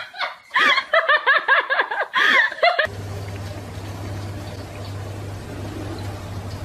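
A woman laughing in quick, high-pitched giggles that cut off suddenly about three seconds in; after that only a low steady hum with a faint hiss.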